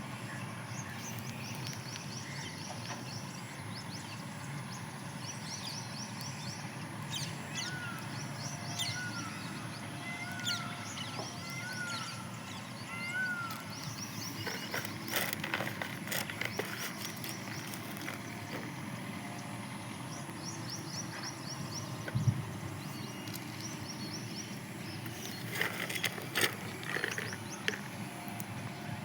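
Outdoor birdsong: small birds repeat high chirping trills, and a run of about five short rising-and-falling calls comes about a third of the way in. Scattered sharp clicks or taps fall around the middle and near the end, over a steady low hum.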